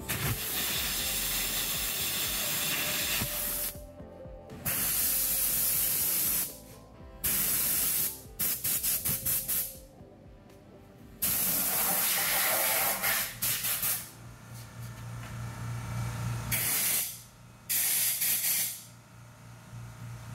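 Compressed air hissing from a needle-nose air blow gun in a series of blasts lasting from under a second to about three seconds, with a quick run of short pulses around the middle. The air is being pushed through the fuel-tank vent system to clear a clog.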